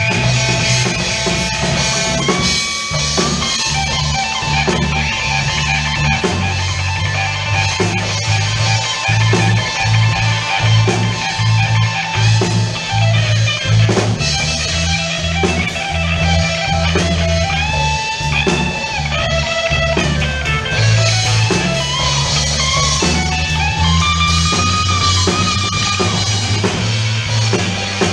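Blues band playing an instrumental passage: a lead guitar plays a melody with bent notes over a steady bass line and drum kit.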